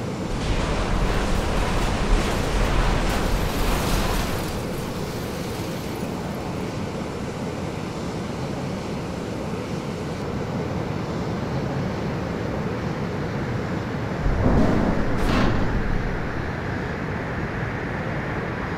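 Sound effects for a Boeing 747 breaking up in flight: a steady rushing wind noise, with a loud blast that begins right at the start and lasts about four seconds. A second, shorter surge of noise comes about fifteen seconds in.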